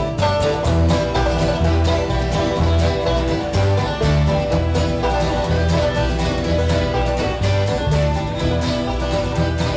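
Bluegrass band playing an up-tempo tune, with banjo, guitar and fiddle over steady bass notes about twice a second.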